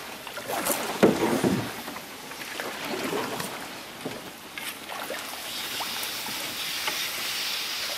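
Canoe paddle strokes dipping and splashing in the water, irregular, with a louder splashing stroke about a second in, over a steady hiss.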